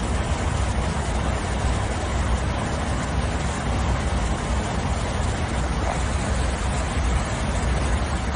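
Steady rush of airflow and engine noise inside a jet airliner's cockpit in flight, an even noise heaviest in the low end, with no change in level.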